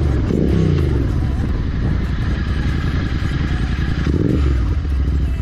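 Royal Enfield Continental GT 650's parallel-twin engine running under way. The revs climb just after the start and rise briefly again about four seconds in.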